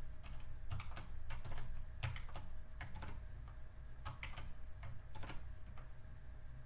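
Typing on a computer keyboard: irregular, uneven keystrokes over a faint steady hum.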